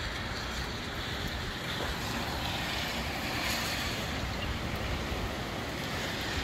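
Gusty wind blowing hard, with low rumbling wind noise on the microphone and a gust swelling about halfway through.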